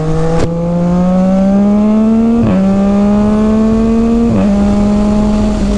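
Motorcycle engine accelerating through the gears, its pitch climbing steadily and dropping sharply at upshifts about two and a half and four and a half seconds in.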